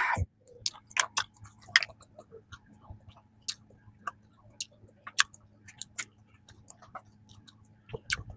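Close-miked chewing of a peanut cream bun: irregular soft mouth clicks and smacks, several a second.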